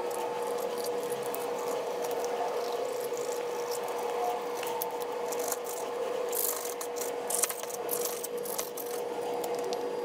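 Chinese cleaver scraping through the skin of a small trout as it is scored and cut, on a plastic cutting board, with sharp knocks of the blade on the board in the second half, the loudest about seven seconds in. A steady hum runs underneath.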